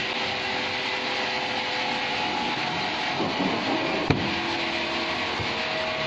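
Steady machinery noise of a band sawmill running, with one sharp wooden knock about four seconds in as a freshly sawn plank is set down on a stack of boards.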